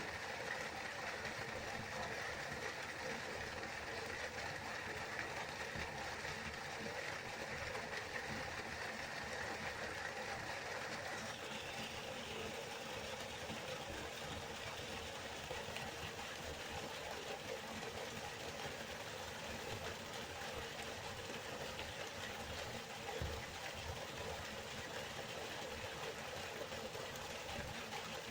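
River water flowing steadily, an even rushing that changes its tone a little about eleven seconds in.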